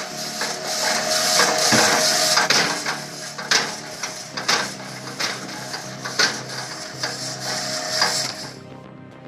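Machine noise: a loud hiss with irregular sharp knocks and clacks and a steady whine. It cuts off suddenly about 8.5 seconds in, leaving background music.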